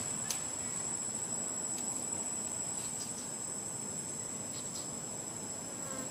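Steady, high-pitched drone of insects in the trees, one even unbroken tone, with a few faint ticks scattered through it.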